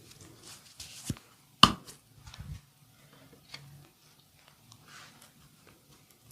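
Hand-on-body massage sounds: one loud, sharp smack about a second and a half in, a smaller click just before it and a few soft thumps just after, over light tapping and rubbing.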